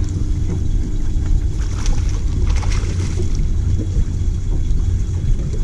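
Steady low rumble of wind and water on an open bass boat, picked up by the camera microphone, with a few faint clicks.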